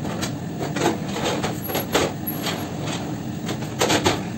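Clattering knocks from a long oven-loading board and its metal frame as bread is slid into a deck oven and the empty board is pulled back and lifted, the loudest knocks near the end. A steady machine hum runs underneath.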